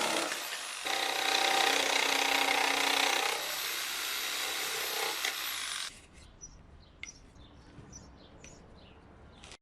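A loud motor-driven machine running, a hiss spread across a wide range with a steady hum under it, that shuts off suddenly about six seconds in. Faint light ticks follow.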